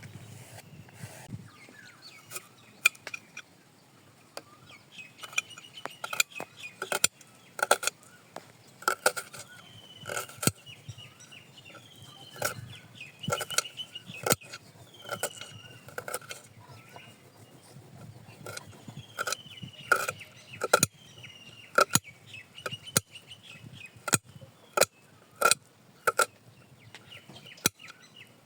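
Irregular sharp metallic clinks and knocks, one or two a second, some with a brief ring, with birds chirping in the background.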